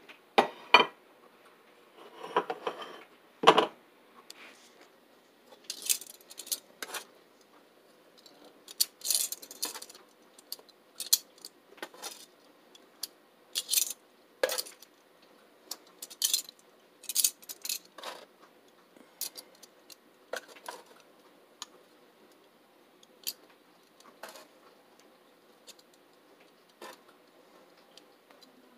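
Metal kitchen utensil clinking and scraping against a non-stick griddle and plate while fried puffball mushroom slices are lifted off. Irregular sharp taps and clinks, with a short scrape about two seconds in, coming thick in the first half and thinning out toward the end.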